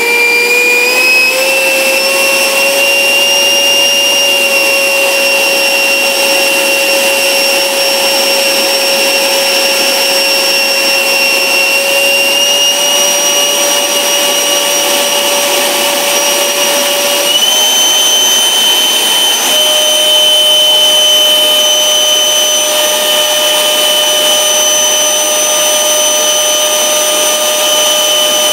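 90mm electric ducted fan (HET 9305-700 fan unit driven by a Turnigy XK4074 1400KV brushless motor on 8S) running at full bench-test load with a loud, steady whine. The whine steps up in pitch three times as the throttle is raised, about a second in, just before halfway and just past halfway, while the current draw climbs from about 28 to 74 amps.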